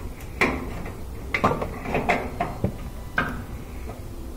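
Lid switch of a top-loading washing machine being pulled free and handled: a string of short, sharp plastic clicks and knocks, several of them.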